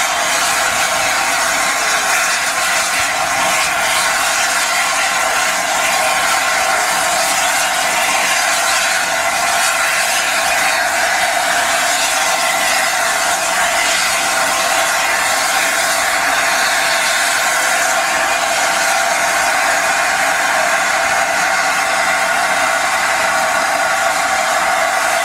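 Steady, loud hiss of steam escaping from the standing LNER A4 Pacific steam locomotive 60007 Sir Nigel Gresley.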